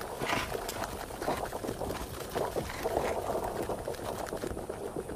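Dense crackling and rustling made of many small clicks: ants scurrying and dragging prey over soil.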